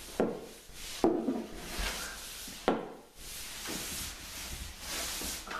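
Water-based finish applicator being stroked through wet finish on a sanded hardwood floor along the edges: rubbing, swishing strokes, each starting with a sharp knock on the wood. The three loudest come in the first three seconds, with softer strokes after.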